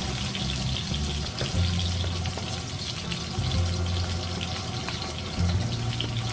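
Tap water running steadily into a kitchen sink, with low background music underneath.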